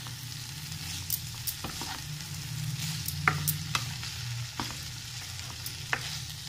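Fusilli pasta and vegetables in masala being stirred and tossed with a spatula in a non-stick frying pan over a gas flame, sizzling lightly, with scattered scrapes and taps of the spatula on the pan. A low steady hum runs underneath.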